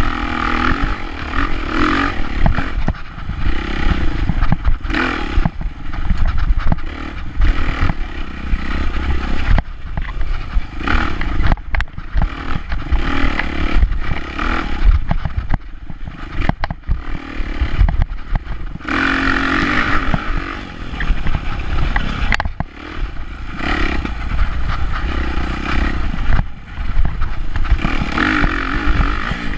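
Dirt bike engine revving up and backing off again and again as it is ridden hard over a rough, rutted trail. Frequent knocks and rattles come from the bike over the bumps.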